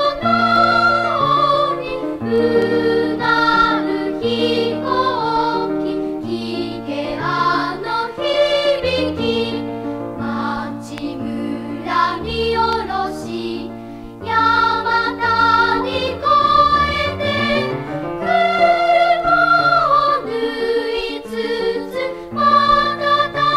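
Japanese school song (shōka) about an airplane, sung to instrumental accompaniment, with a short rising run of low notes a little past the middle.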